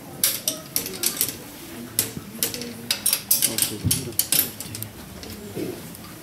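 A metal key rattling and clicking in the lock of a gilded metal grille as it is worked open: a quick, irregular run of sharp clicks and scrapes that thins out after about four and a half seconds.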